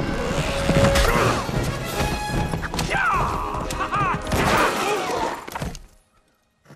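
Orchestral film score over action sound effects, with crashes and thuds and a few short cries near the middle. The sound cuts off suddenly about six seconds in.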